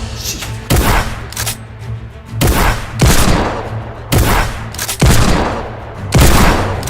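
A string of gunshot sound effects, about seven heavy shots each trailing off in a boom, over background music with a steady bass.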